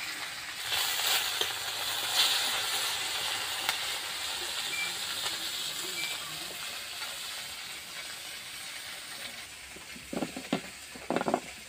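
Small fish frying in hot oil in a wok, a steady sizzle that is loudest in the first few seconds and slowly fades. A few short, louder sounds come near the end.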